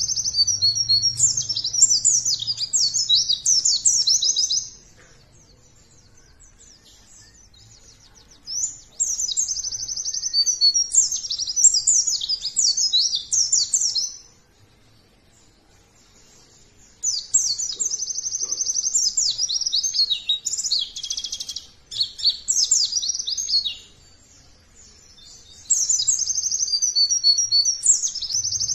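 White-eye (pleci) singing a fast, high twittering song in four bouts of a few seconds each, separated by pauses of a few seconds.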